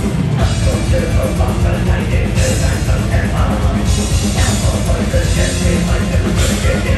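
Loud live heavy metal played by a full band, with dense, driving drums and cymbal wash over distorted guitars.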